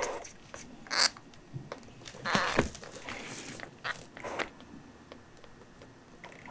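Rustling and scuffing from handling a newborn kitten on an absorbent pad: a rubber-gloved hand moving a nursing bottle about and the kitten shifting and crawling. The noises come in a few short bursts, the longest about two seconds in.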